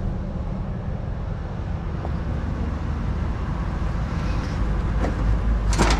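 Truck driving past on the street, a low engine and road rumble that grows louder toward the end, with wind buffeting the microphone. A brief rustle comes just before the end.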